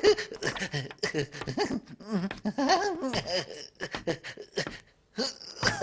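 A cartoon character's wordless voice sounds, chuckling and chattering, with a short pause near the end.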